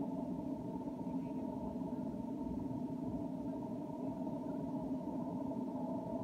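A steady low rumbling noise, muffled, with nothing in the higher pitches and no distinct events.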